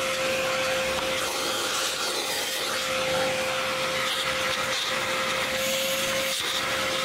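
Household vacuum cleaner with a narrow crevice tip running steadily, with a constant motor whine, as it sucks packed leaves out of a car's cabin air filter housing.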